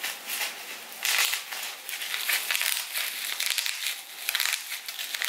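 Plastic bubble wrap crinkling and rustling as it is handled and pulled open by hand, in uneven spurts of crackle.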